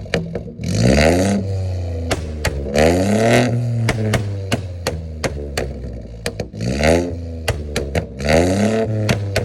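Stage 1 tuned BMW 118i engine and exhaust revved in four short blips from idle, each rising and falling back. Sharp pops and crackles come between the blips as the revs drop.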